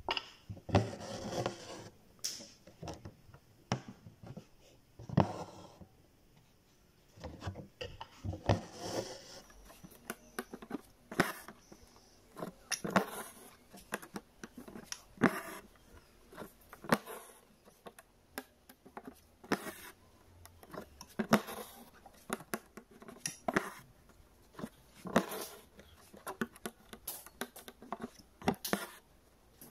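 Hand embroidery: a needle pushed through fabric held taut in an embroidery hoop and green stranded thread drawn through after it, stitch after stitch as a leaf is filled in. Short scratchy rustles come about once a second, with a few longer pulls of thread near the start.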